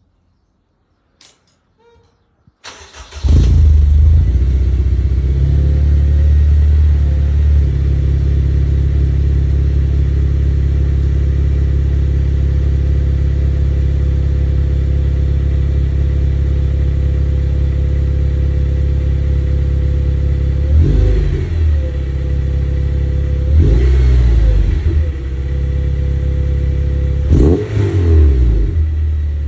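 Honda DC5 Integra's four-cylinder engine starting about three seconds in through an aftermarket exhaust (header, 70 mm mid pipe and Mugen twin-loop muffler), then idling steadily with the exhaust note to the fore. Near the end it is blipped three times, briefly revving up and dropping back to idle.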